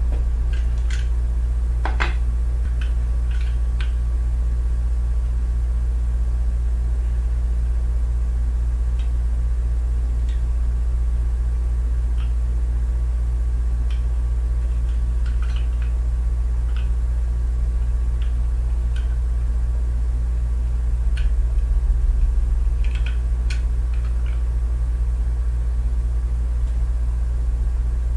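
A steady low hum with evenly spaced overtones runs throughout. Over it come faint, scattered clicks and light scrapes as a utility knife blade is worked under the label of an HP 304 ink cartridge, a little busier near the end.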